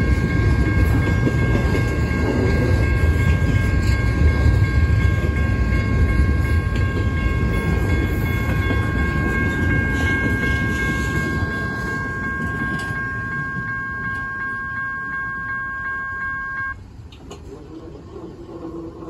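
Double-stack container cars rolling past, a loud low rumble of wheels on rail that fades as the end of the train goes by. Over it a railroad crossing bell rings steadily, then cuts off suddenly near the end.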